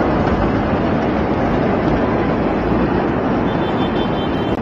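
Loud, steady roar of noise in the aftermath of the Beirut port explosion's blast, with no distinct bangs.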